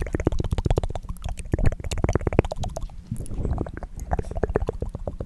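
Rapid, wet tongue clicks made close to the microphone, a fast run of many clicks a second with a short break about three seconds in.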